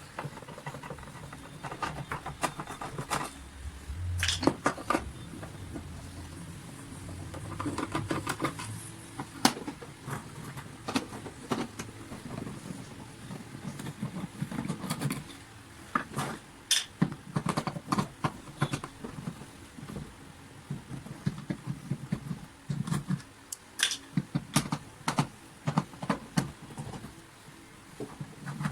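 A vacuum cleaner being taken apart by hand: screws being undone and plastic housing parts handled, giving an irregular run of clicks, knocks and short plastic rattles.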